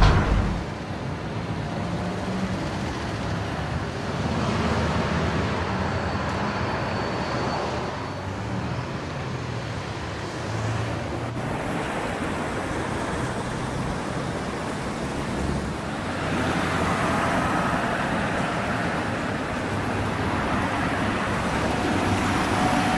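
City road traffic: cars and buses driving past on a busy street, a steady hum of engines and tyres. The sound changes abruptly about eleven seconds in, to another stretch of street traffic.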